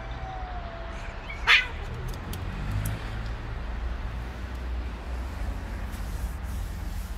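Cats in a standoff: one cat gives a drawn-out, low, steady yowl, then a single sharp hiss-spit about a second and a half in, the loudest sound.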